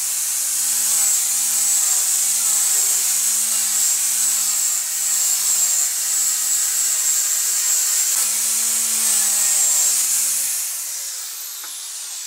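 Electric sander with a round sanding disc, running against the natural edge of an ash slab. The motor pitch wavers slightly under load. About ten and a half seconds in it is switched off and spins down with a falling whine.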